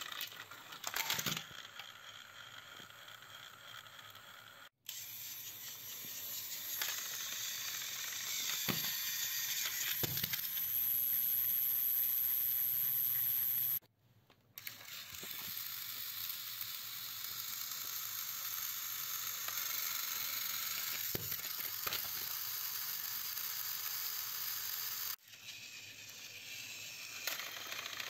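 Battery-powered Plarail toy train motors whirring with a high whine as the trains run along plastic track, with a few sharp clicks. The sound drops out abruptly three times.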